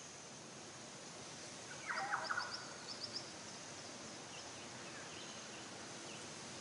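Steady faint background hiss, broken about two seconds in by a second-long burst of chattering chirps and clicks, with a few faint high chirps later.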